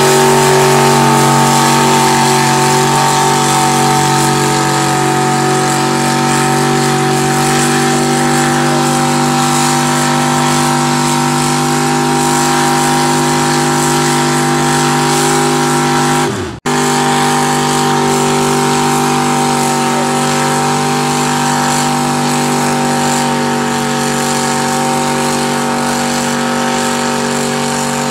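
Mud truck engine running on 44-inch tires, held at steady high revs through a mud pit. A little past halfway the sound dips and cuts out for a moment, then picks up again unchanged.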